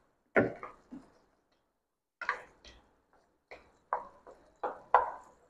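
Wooden spoon knocking and scraping against a non-stick kadai while stirring soft cooked pumpkin pieces: about ten short, irregular knocks, each with a brief ring.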